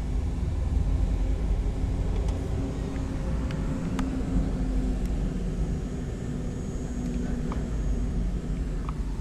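John Deere 4045 four-cylinder diesel engine of a generator set running at a steady speed: a constant low rumble with a faint steady hum above it.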